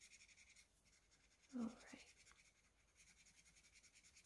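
Crayola felt-tip marker scrubbing on paper: faint, rapid back-and-forth coloring strokes at about six a second. The strokes break off about half a second in and start again about three seconds in, with a brief soft low sound between.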